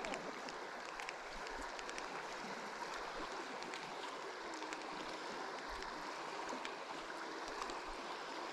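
Steady rush of flowing river water, with a few faint ticks.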